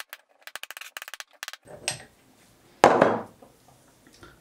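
A rapid run of light hammer taps, about ten a second, on an aluminium block and steel plate, driving a 30206 tapered roller bearing cup into the bore of a mini mill's spindle housing. About three seconds in comes a single loud metal clank that rings briefly.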